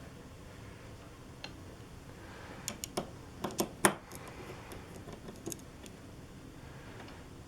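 A handful of short, light clicks and clinks from small parts and tools being handled while a hammer is refitted into a Yamaha CP-80 piano action, bunched together a few seconds in with a few more shortly after.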